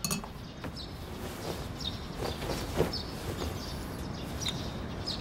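Small birds chirping now and then in the background over a low, steady ambient hiss, with a few soft knocks.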